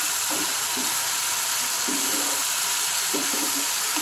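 Chopped green chillies in masala frying in oil in a pan, with a steady sizzle, while a spatula stirs and scrapes through them.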